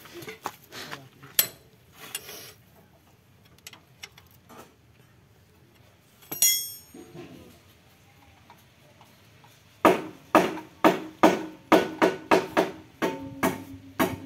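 Hand tools clicking and clinking on the harvester's steel gearbox housing, with one sharp ringing metal clink about six seconds in. About ten seconds in, background music starts: a steady beat of loud percussive strikes, about two a second, joined by held notes near the end.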